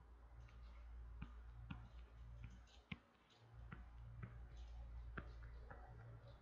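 Faint, irregular light clicks and taps, several seconds' worth and unevenly spaced, from a stylus or pen on a tablet or drawing surface as strokes are drawn, over a low steady hum.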